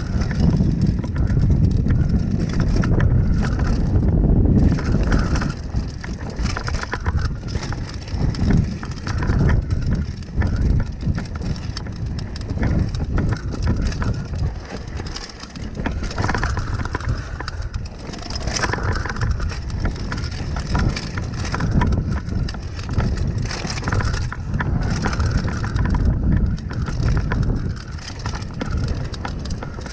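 Mountain bike descending a dirt trail: tyres crunching over dirt and loose stones with the bike rattling over bumps, and a low rumble of wind on the microphone.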